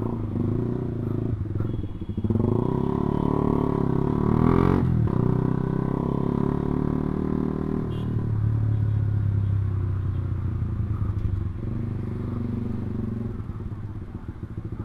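Honda CB150R's single-cylinder engine running while riding, its pitch rising and falling with the throttle for a few seconds, then holding steadier.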